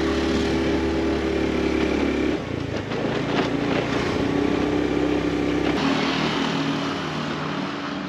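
Small motor scooter engine running at a steady speed while being ridden, with wind and road noise. The sound changes abruptly about two and a half seconds in and again near six seconds, where the low rumble drops away.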